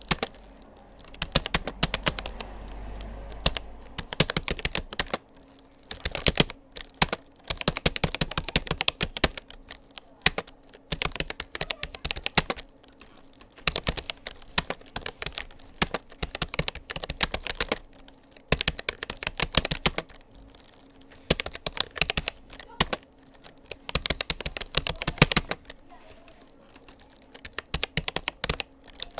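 Rapoo computer keyboard being typed on steadily: rapid key clicks in runs of a second or two, broken by brief pauses between words and phrases.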